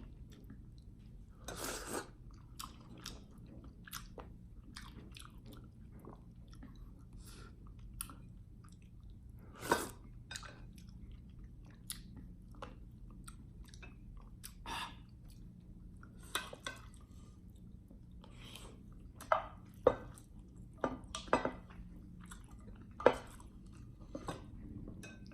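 A person chewing and biting food, with wet mouth clicks and occasional crunchy bites at irregular intervals; a few sharper, louder smacks stand out about ten seconds in and again near the end.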